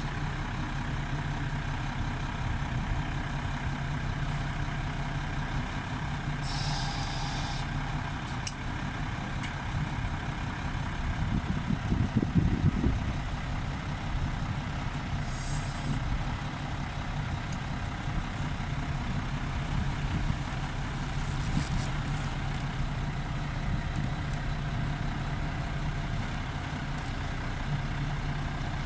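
Heavy diesel vehicle or machine engine running steadily, swelling louder briefly near the middle, with a couple of short air hisses.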